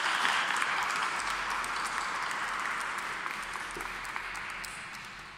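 A small audience applauding, the clapping slowly dying away.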